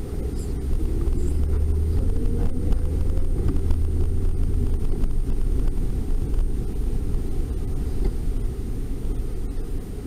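A car's engine and road noise heard from inside the cabin as it drives slowly: a steady low rumble, heaviest in the first half.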